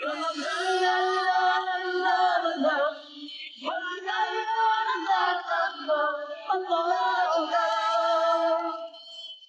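Wordless singing over music: long held notes that open a TV drama's theme song, breaking off briefly about three and a half seconds in and fading near the end.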